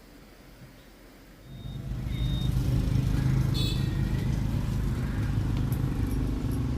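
A vehicle engine running close by. It comes in about a second and a half in, swells over about a second, then runs steadily with a low, even rumble.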